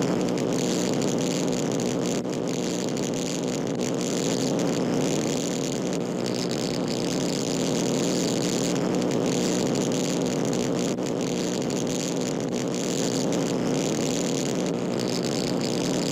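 Electric arc welder's arc burning steadily: a continuous buzzing hum with a crackling, sizzling hiss on top.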